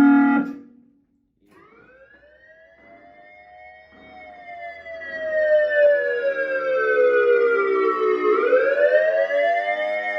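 Dual-tone ACA Alertronic AR-1600 electronic siren: its steady Alert tone cuts off half a second in, and after about a second's pause the Attack signal starts, a wail that rises, falls slowly and rises again about eight seconds in.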